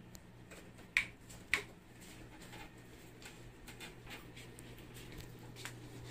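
Two sharp clicks about half a second apart, then scattered fainter ticks, over a low steady hum.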